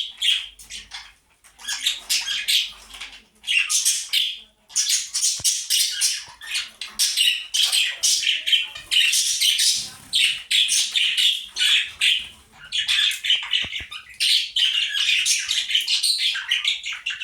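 Caged pet parrots chattering and squawking, a dense stream of rapid high-pitched calls with only brief pauses.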